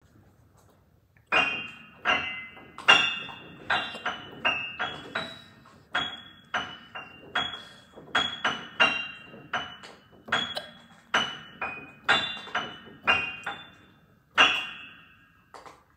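A simple tune picked out one note at a time on a bright, bell-like struck instrument, about twenty notes at a slow, uneven pace, each ringing out and fading before the next.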